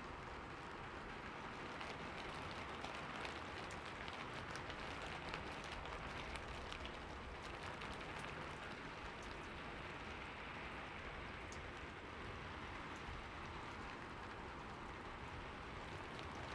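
Steady rainfall, a constant hiss of rain with many fine drop ticks running through it.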